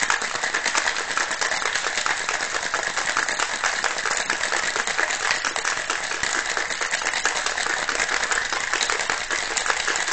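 Ice cubes rattling inside a stainless-steel cobbler cocktail shaker, shaken hard without pause: a fast, dense, steady clatter of ice against metal as the rum-and-juice cocktail is mixed and chilled.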